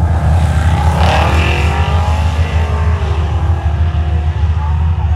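A motor vehicle's engine over a heavy low rumble. Its pitch climbs in the first second, falls away over the next two, then holds steady.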